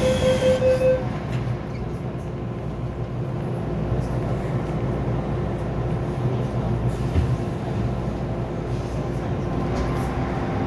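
MTR M-Train heard from inside the car: the pulsing door-closing warning beeps end about a second in as the doors shut, then the train pulls away with a steady low rumble of motors and wheels that grows louder from about four seconds in.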